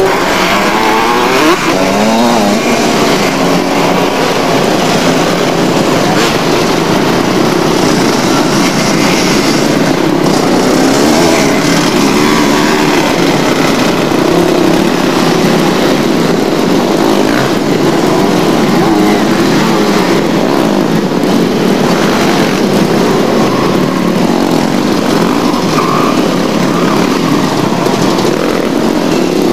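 Motocross bike engines revving hard as bikes race past, several at once, with the engine pitch sweeping up and down in the first couple of seconds.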